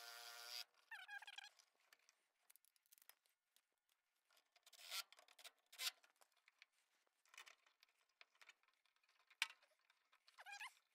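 Faint handling noises as rubber pressure-switch tubing is worked onto a furnace draft inducer: short squeaks of rubber at the start, about a second in and near the end, and a few sharp clicks and taps in between.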